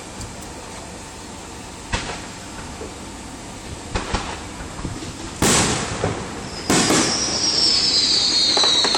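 Aerial fireworks going off: sharp bangs about two and four seconds in, then louder bangs about halfway, followed by a steady loud rush and a high whistle that slowly falls in pitch near the end.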